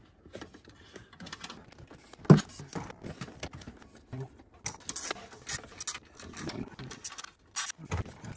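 Hand work in a car's engine bay as a wiring harness is worked into place: a run of small irregular clicks and rattles, with one sharper knock about two seconds in.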